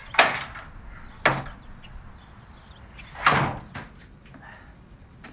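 A door being opened and banged shut: three sharp bangs, at the start, about a second later, and a longer one about three seconds in.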